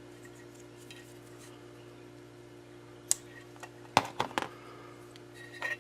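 A few sharp clicks and clinks of small tools, wires and heat shrink pieces being handled on a workbench, a cluster of three about four seconds in, over a faint steady hum.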